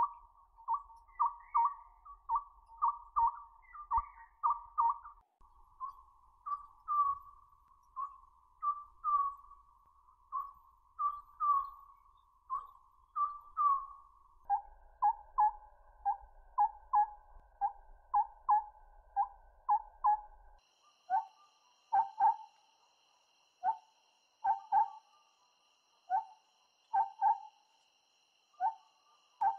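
An owl calling: a long series of short whistled toots on one pitch, about two a second, becoming slower and irregular in the last third.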